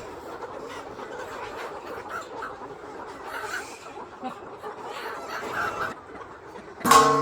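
A flock of chickens clucking, many overlapping calls at once, with one loud pitched call breaking in near the end.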